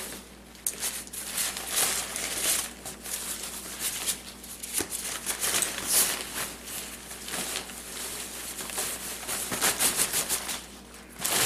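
Fabric stuff sack rustling and crinkling as its drawstring is worked open and clothing is pulled out of it, in short irregular bursts of handling noise.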